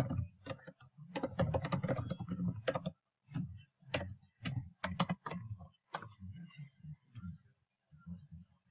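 Typing on a computer keyboard: a fast run of keystrokes for about three seconds, then scattered keystrokes, trailing off into faint low knocks near the end.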